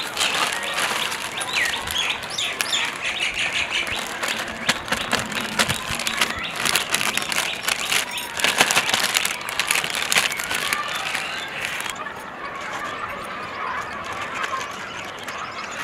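Polythene sheet rustling and crinkling in many quick crackles as it is handled and pressed flat with a steel plate over potato papad dough. It is quieter for the last few seconds.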